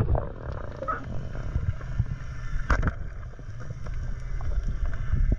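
Underwater sound picked up by a camera in a waterproof housing: a low, muffled rumble with scattered clicks, one sharper click near the middle.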